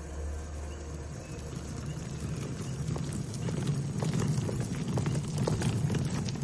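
Audio-drama sound effects: a low steady hum, joined from about halfway by a run of irregular clopping clicks over a low rumble.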